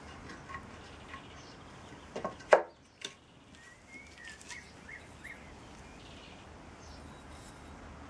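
A sharp wooden knock about two and a half seconds in, then a lighter click half a second later, as the halves of a wooden moulding flask are seated together. Small birds chirp in the background.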